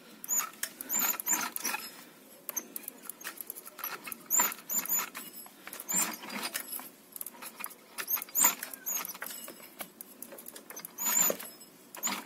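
High-pitched squeaking from the crankshaft of a hot two-stroke scooter engine, coming in bursts of short chirps that swell and fade. The squeak is absent when the engine is cold, and the owner comes to suspect a crankshaft bearing.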